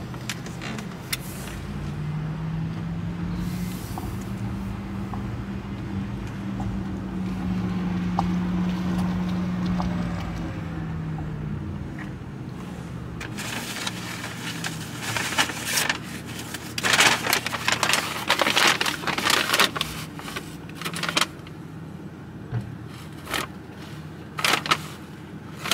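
Car moving slowly, a steady low hum that swells and then fades away. In the second half, irregular crinkling and rustling of a paper fast-food bag and receipt being handled.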